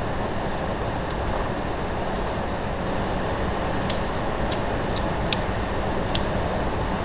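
Steady rushing noise, with a handful of small, sharp metallic clicks as a Fritz Mann .25 caliber pocket pistol is loaded and its bolt pulled back, most of them in the second half.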